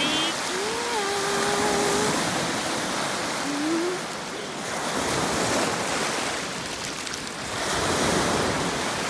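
Small surf washing up and breaking on a beach thick with caplin rolling in to spawn, the wash swelling and easing every few seconds. A short pitched call sounds about a second in, with a brief rising one near four seconds.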